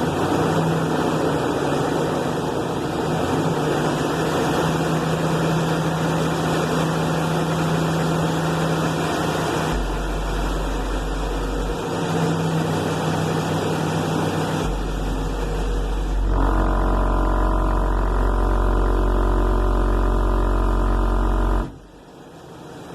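Rockville Punisher subwoofer driven hard on low bass tones: a steady low note alternates with a much deeper one, over a loud wash of noise. It cuts off abruptly about 22 seconds in.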